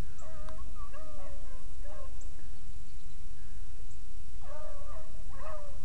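A pack of beagles baying on a rabbit's trail, some way off: two bouts of drawn-out bawling, one near the start and one near the end, the sign that the hounds are on the rabbit's scent. A steady low rumble lies underneath.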